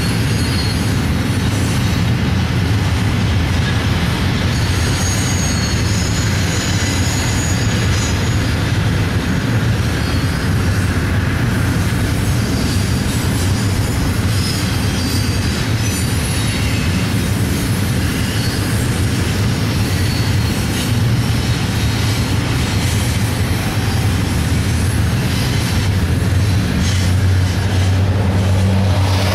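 Double-stack intermodal freight train rolling past close by: a steady rumble of steel wheels on the rails, with faint high wheel squeal at times.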